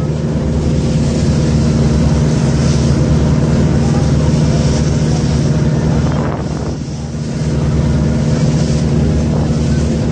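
Ferry boat's engine running with a steady drone, with wind on the microphone; the level dips briefly about two-thirds of the way through.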